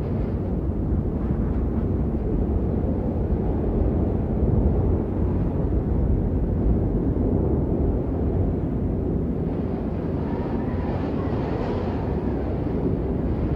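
Wind blowing in gusts: a steady low rumble that swells and eases, with a brighter rushing hiss coming in around ten to twelve seconds in.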